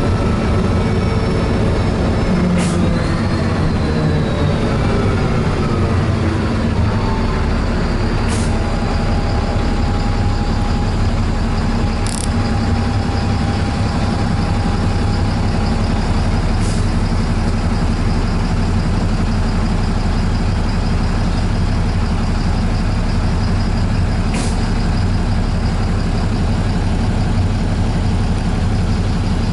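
Inside a moving city bus: a steady low rumble of the running bus. A whine falls in pitch over the first several seconds, a steady hum follows for several seconds, and a few short clicks sound through the ride.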